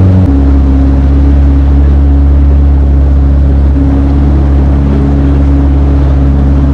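Motorboat engine running steadily at cruising speed while the boat is underway. Its pitch drops abruptly shortly after the start, then holds steady.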